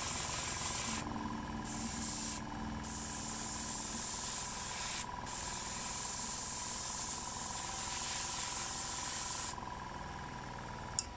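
Airbrush spraying primer: a steady hiss of air and paint, broken off briefly three times as the trigger is let go, with the small airbrush compressor running underneath. The spraying stops a little before the end, followed by a single sharp click.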